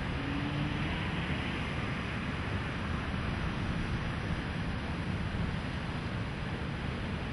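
Floodwater rushing: a steady, unbroken noise with no change in level.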